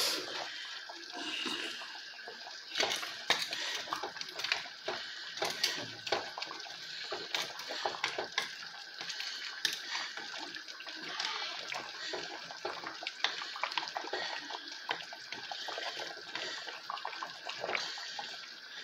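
A big stainless-steel pot of goat-meat and dried-fish stock at a rolling boil: steady bubbling with many small pops and splutters.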